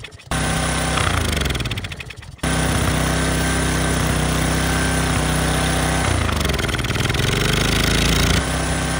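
Small single-cylinder pressure-washer engine on a lawnmower deck running fast while snow is fed into its intake. Its pitch sags twice, about a second in and again past the middle, then picks back up. The sound breaks off and restarts abruptly twice.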